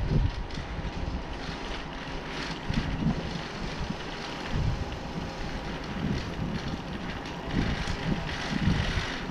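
Wind buffeting the microphone of a camera riding on a moving bicycle, with an uneven low rumble from the ride over brick pavement.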